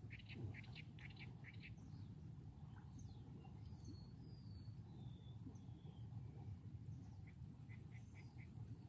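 Faint bird calls over a low steady background rumble: a quick run of short chirps, then a few thin whistled gliding notes, then another short run of chirps near the end.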